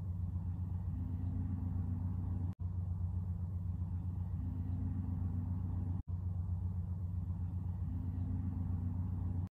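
A steady low rumble, cut off twice for a split second by brief dropouts to silence.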